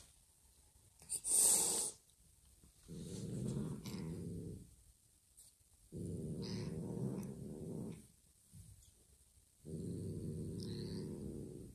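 A cat hisses once, sharply, then growls three times, each low, rough growl lasting about two seconds with a pause between: a warning against the other cats close by.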